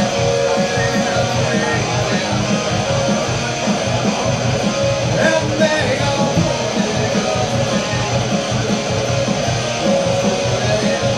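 Live rock song on an amplified electric guitar, strummed over a steady beat.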